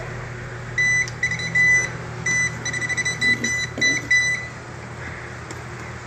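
Non-contact voltage tester beeping in short, high-pitched chirps, sometimes a single beep and sometimes a rapid run of them, as it picks up voltage from the knob-and-tube wiring in the wall. The beeping stops a little past halfway.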